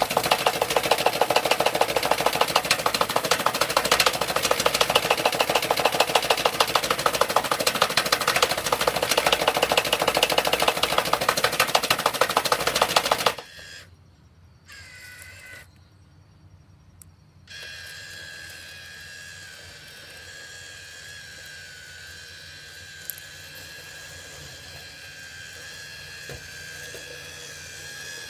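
iRobot Looj gutter-cleaning robot's motor and spinning auger giving a loud, fast-pulsing whir. About 13 seconds in it cuts off abruptly. After a couple of brief dropouts it goes on as a much quieter, steady whine.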